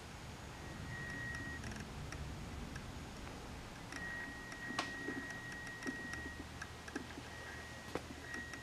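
Quiet indoor room tone with a low hum, a few faint clicks, and a thin high whine that comes and goes.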